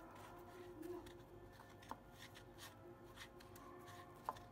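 Faint rustling and scraping of a glazed donut being rolled by hand in a bowl of milk powder or sugar coating, with two light clicks, about two seconds in and near the end, over a faint steady hum.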